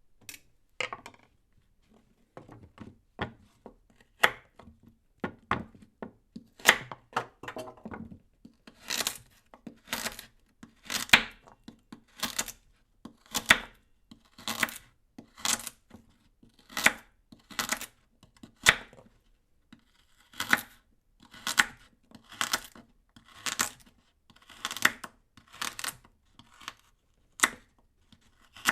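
A knife cutting a carrot on a cutting board, a long series of crisp single cuts. They come sparse and uneven for the first several seconds, then settle into a steady rhythm of about one cut a second.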